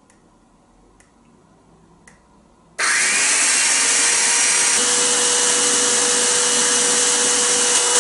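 A hand-held electric drill switches on abruptly about three seconds in, after a few faint clicks, and runs steadily, spinning a De Vry 35mm silent film projector mechanism through a string belt on its large drive pulley. The mechanism is being test-run at speed with no knocking heard.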